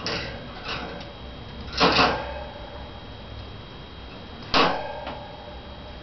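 A few sharp knocks or clacks, each with a short ringing tail: one at the start, a double knock about two seconds in (the loudest), and another about four and a half seconds in, followed by a fainter one.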